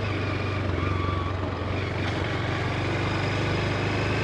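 2022 Honda Grom's single-cylinder engine running steadily at low, even revs.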